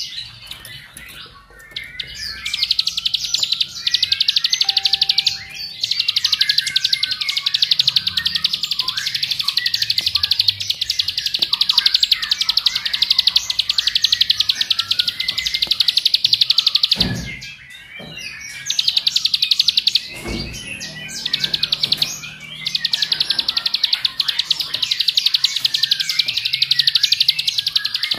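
Ciblek (a prinia) singing its rapid, continuous high trill in long runs of several seconds, the fast 'ngebren' song that keepers prize. The song breaks off twice near the middle, and each gap has a soft low thump.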